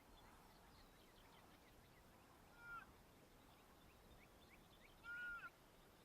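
Birds calling: a short honk-like call about halfway through and a longer one near the end, over faint scattered chirping.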